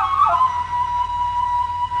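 Bulgarian kaval, an end-blown wooden shepherd's flute, playing a shepherd's melody. A new phrase opens with quick ornamental grace notes, settles into a long held note, and steps up to a higher note near the end.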